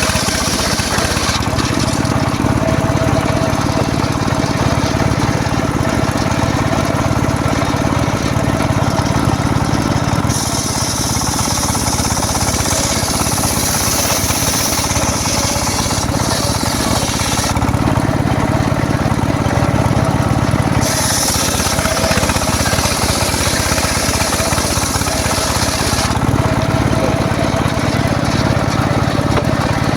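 Homemade engine-driven circular saw running steadily while sawing teak wood. A high hiss comes and goes in stretches of several seconds as the blade cuts.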